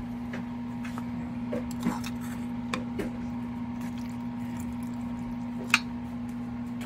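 A metal spoon knocking and scraping now and then against a stainless steel bowl of raw pork and pork liver being mixed with garlic and onion, with soft wet squishes of the meat. A handful of sharp clinks come at irregular moments, the loudest a little before the end, over a steady low hum.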